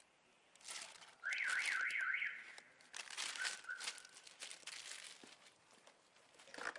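Plastic packaging crinkling and rustling as small pressure-washer parts are handled and unwrapped by hand. About a second in, a brief high warbling tone rises and falls about five times within a second and is the loudest sound.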